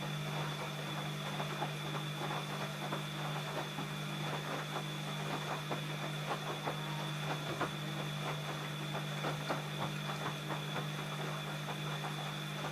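ELIN A 100 E washing machine running: a steady electric-motor hum with a faint high whine, over many irregular clicks and rattles.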